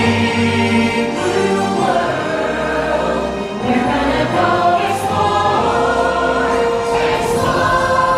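Stage-musical number: a choir of voices singing held notes over an instrumental backing with a steady bass.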